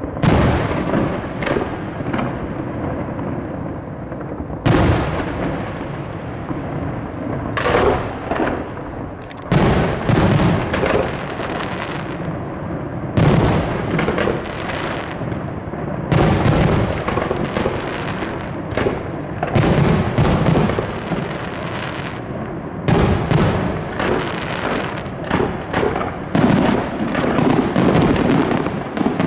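Aerial fireworks display: loud shell bursts booming every second or two over continuous crackling, the bangs coming closer together from about halfway through.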